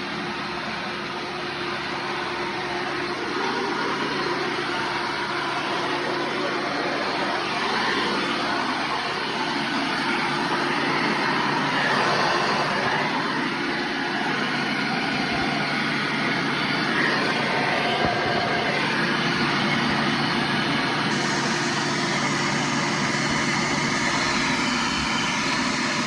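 Hoover Runabout Deluxe (U5064-940) vacuum cleaner running: a steady motor hum under a rushing airflow hiss, the level rising and falling a little as it is worked.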